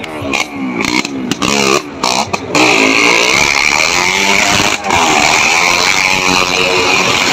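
Motorcycle engines revving up and down several times, the pitch rising and falling, inside a wooden well-of-death drum.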